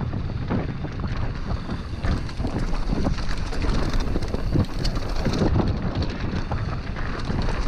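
Wind buffeting the microphone of a mountain bike descending a rough dirt trail, mixed with tyre noise and the bike clattering over rocks and ruts in many short knocks.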